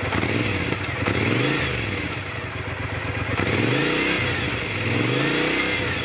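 Triumph Scrambler's 865 cc air-cooled parallel-twin engine through its stock exhaust, idling and revved up and let fall back several times.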